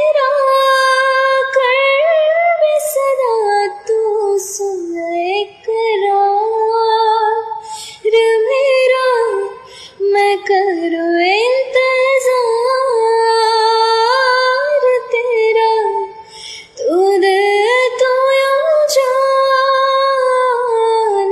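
High female voice singing a slow, ornamented love-song melody: long held notes with vibrato and sliding turns between them, broken by short breaths, with little accompaniment beneath.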